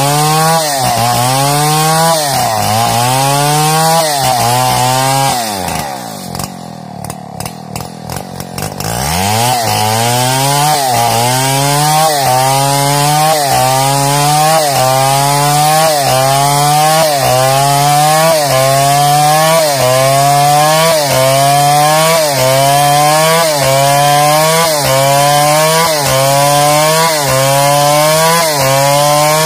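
New West 707 two-stroke chainsaw with a 36-inch Oregon bar ripping a log lengthwise into planks. The engine pitch rises and sags about once a second under load. About six seconds in it drops to idle for about three seconds, then revs back up and goes on cutting.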